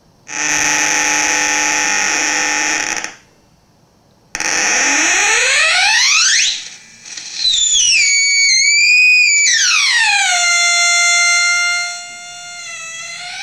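A breadboarded ZVex Fuzz Factory fuzz pedal clone self-oscillating through a small Vox guitar amp. It holds a steady buzzy tone for about three seconds, cuts out briefly, then comes back as a tone that sweeps upward in pitch, wobbles up and down, drops and settles into a quieter held tone as its knobs are turned.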